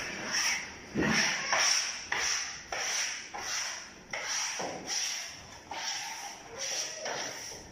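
A cloth rubbed by hand over wallpaper in repeated short strokes, about two a second.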